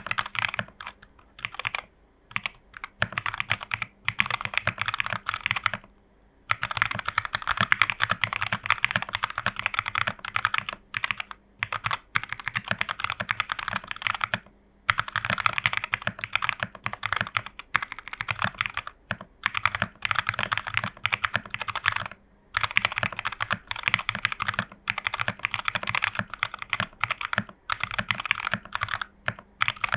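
Fast typing on a plateless TU40 mechanical keyboard with Jwick Nylon switches and XMI keycaps, damped by case foam, PCB foam and a tape mod. Long runs of quick keystrokes are broken by a few short pauses.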